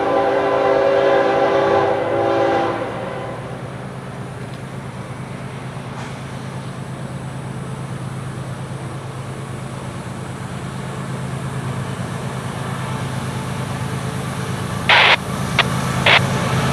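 Diesel freight locomotive horn sounding as a chord of several steady tones, cutting off about three seconds in. Then the low rumble of the approaching CSX locomotive's diesel engine, growing slowly louder, with a few short loud bursts of noise near the end.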